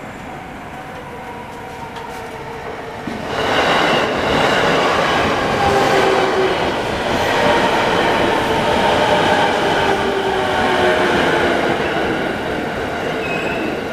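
A JR Nambu Line electric commuter train passes over the level crossing, loud from about three seconds in until near the end, over the crossing's warning bell ringing steadily.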